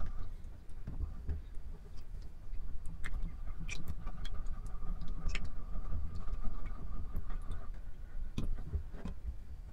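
Spatula stirring runny salt-and-water slime in a glass bowl: scattered wet clicks and taps over a low rumble, with a faint steady high tone through the middle.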